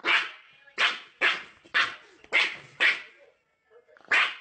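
Dog barking: six sharp barks about half a second apart, then a pause and one more bark near the end.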